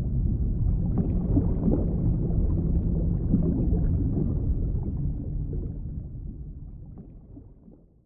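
Low, muffled underwater rumble of moving water with a few faint clicks, fading away over the last few seconds.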